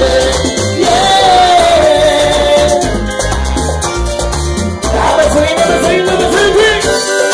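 Live Latin dance music: a metal güira scrapes a steady rhythm over a pulsing bass line, with a singer's melody rising and falling above.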